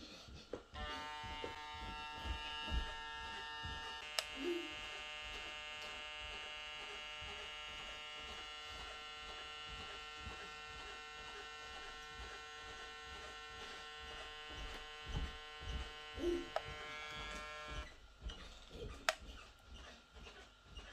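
Kiepe Diavel cordless hair clipper motor running with a steady, even buzz, its blade measured at about 9,050 RPM, then switched off near the end; a click follows shortly after.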